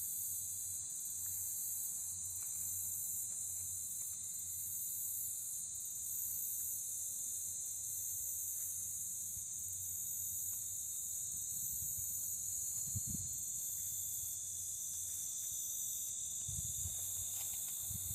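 Steady high-pitched chorus of insects such as crickets, with a faint regular pulse about once a second. A couple of soft low thumps come in the second half.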